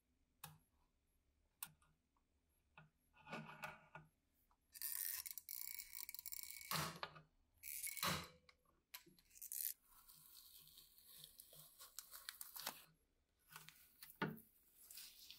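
Red hand blind-rivet (pop rivet) gun setting small rivets through an aluminium type plate, with sharp snaps as the rivet stems break. Masking tape is then torn and peeled away with a scratchy rustle.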